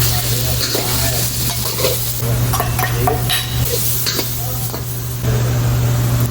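Food sizzling in a hot frying pan while a spatula stirs and scrapes it, with short scraping strokes over a steady sizzle and a constant low hum underneath.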